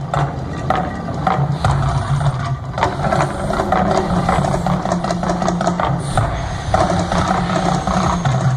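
Steady deep rumble with scattered knocks and clatter, as from the volcano attraction's rumble effects over loudspeakers.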